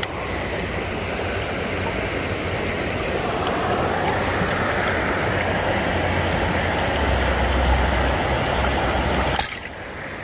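Creek current rushing and splashing around a hand holding a brown trout in the water, close to the microphone. The noise drops suddenly to a quieter level near the end.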